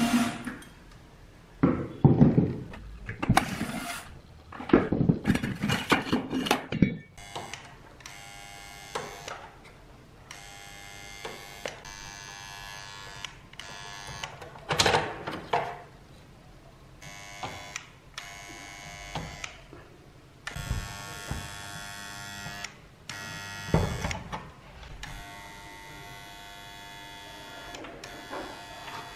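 For the first several seconds there is knocking and clatter from the amplifier's metal heatsink and chassis as it is unscrewed with a cordless drill driver. After that, a transformer soldering gun buzzes steadily in stretches of a few seconds, cutting on and off with its trigger, while wires are desoldered from the circuit board.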